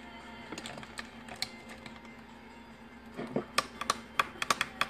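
Sharp, irregular clicks and taps like typing, in quick runs from about three and a half seconds in.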